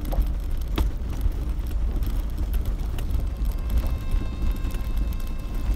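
4x4 vehicle crawling over a rough, stony track, heard from inside the cab: a steady low rumble of engine and tyres, with knocks and clatters from stones under the wheels. Sharp knocks come about a second in and again about three seconds in.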